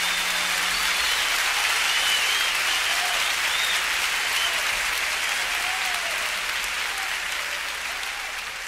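Live concert audience applauding at the end of a song, with a few cheers rising above the clapping. The applause fades out steadily through the second half.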